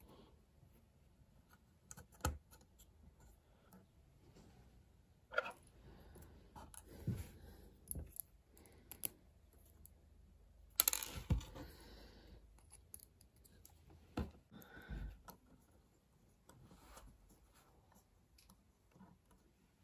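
Small plastic model train parts being handled on a wooden tabletop: faint, irregular clicks and taps, with a louder scraping rustle about eleven seconds in.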